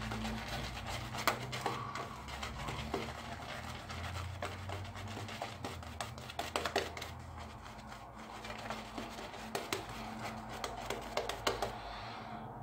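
Boar-bristle shaving brush (Omega 48) working wet Arko soap lather over a week's beard: scrubbing, scratchy brushing with many small irregular clicks and crackles.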